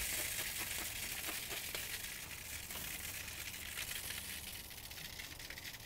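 Water just misted onto hot smoked beef ribs sizzling and crackling on the grate of an open Big Green Egg kamado grill, slowly dying away.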